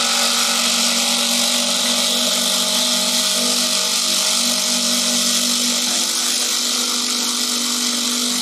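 Two cordless impact drivers, a HART and a RYOBI 3-speed, hammering steadily as they drive fasteners into a wooden board. The RYOBI is running in its speed 2 setting.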